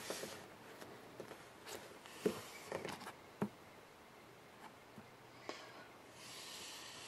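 Faint, scattered light taps and knocks from a hand handling an iPhone in its case, with a soft hiss near the end.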